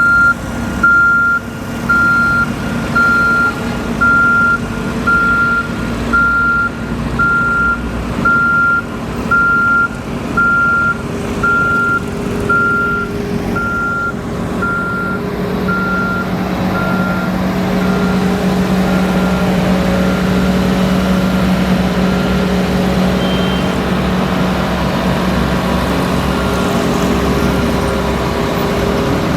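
Reversing alarm on heavy road-construction equipment, beeping about once a second over a running engine. The beeping fades out about halfway through, leaving the engine's steady drone.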